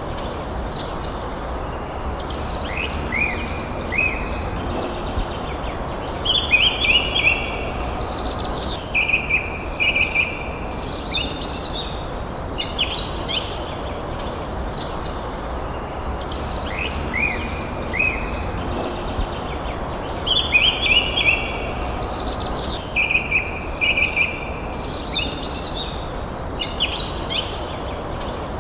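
Forest birds singing: short whistled and trilled phrases every second or two, over a steady low hiss.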